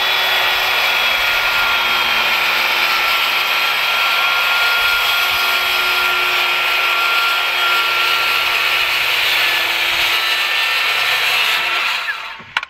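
DeWalt corded circular saw running steadily with a motor whine as it cuts through an OSB sheet. Near the end the motor is switched off and winds down, followed by a short knock.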